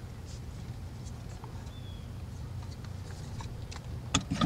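Faint clicks and light rattles of outboard motor parts being handled, then a louder clatter of knocks near the end as the recoil starter housing is set back onto the engine. A steady low hum runs underneath.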